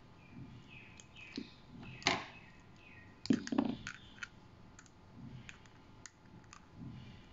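Handling noise of small objects on a work surface: scattered light clicks and taps, with two louder knocks about two seconds and three and a half seconds in.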